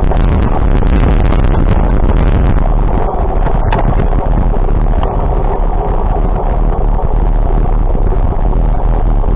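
Loud steady rumble of a moving vehicle, with engine, road and wind noise.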